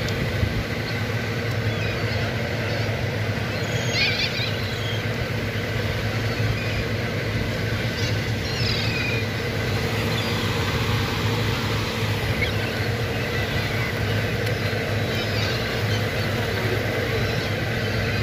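Gulls calling now and then, with short calls about four seconds in, near the middle, and again later, over a steady low rumble.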